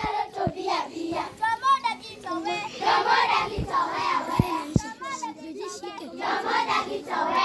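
Children singing together, with a few low thumps among the singing.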